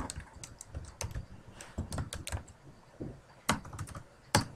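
Computer keyboard typing: a run of irregular key clicks, with a couple of louder taps near the end.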